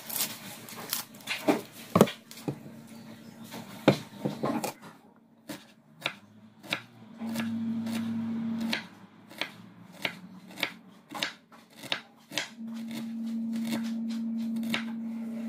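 Kitchen knife cutting a red onion on a wooden cutting board: irregular knocks of the blade on the board, coming faster in the second half. A steady low hum comes in twice, for about a second and a half midway and again for the last three seconds.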